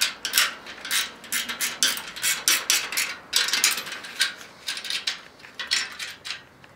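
Ratcheting wrench clicking in quick, irregular bursts as the nuts on a bicycle chain tensioner are tightened.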